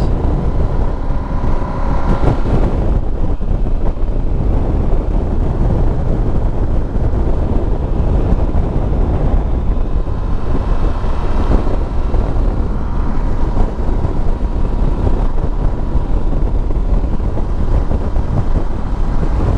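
Steady wind rush buffeting the microphone over the running engine of a Yamaha Super Ténéré adventure motorcycle at road speed.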